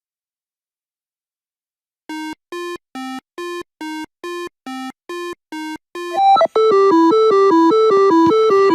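Silence for about two seconds, then a run of short, evenly spaced electronic beeps, about three a second. About six seconds in, synthesizer music with a fast repeating note pattern takes over.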